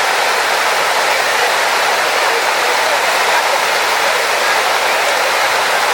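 Steady rushing water, a constant even hiss with no breaks.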